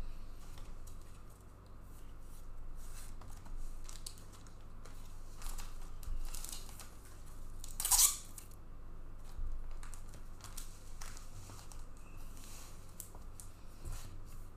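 Trading card packaging and cards being handled: scattered rustling, crinkling and tearing with soft clicks, and a louder rustle about eight seconds in.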